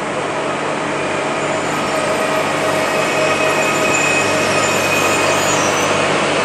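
Two PESA Elf EN76 electric multiple units, one standing at the platform and one pulling in alongside it: a steady, loud hum with several held tones over an even rushing noise.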